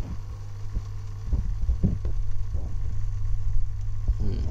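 Steady low hum of an aquarium filter motor, with low rumbling knocks that get louder from about a second in.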